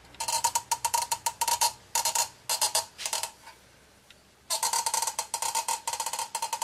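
Caulking gun squeezing silicone out along a wooden strip: bursts of rapid clicks, a pause around four seconds in, then a longer run of clicks near the end.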